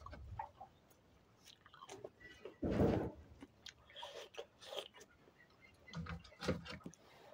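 Close-up chewing and biting, someone eating home-cooked maize, with small crunching clicks. A louder, dull thump about three seconds in.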